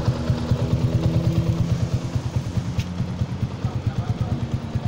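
Yamaha LC135 motorcycle with a swapped-in FZ150 single-cylinder four-stroke engine, idling steadily through an SHM aftermarket exhaust. The exhaust gives an even, unchanging train of pulses with no revving.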